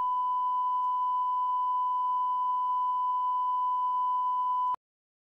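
Steady 1 kHz reference test tone, one long unbroken beep, the line-up tone that goes with colour bars. It cuts off suddenly near the end.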